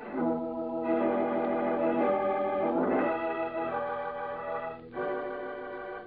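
Organ music: a run of held chords, changing about every second and easing off near the end, a bridge cue marking a scene change in a radio drama.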